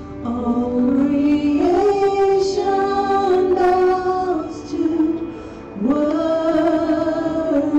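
A woman singing a slow worship song into a microphone, holding long notes. She breaks off briefly about five seconds in, then comes back in with a note that slides up and holds.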